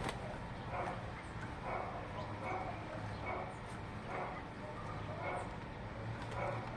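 An animal calling over and over, about once a second, each call short and harsh, with faint high chirps in between.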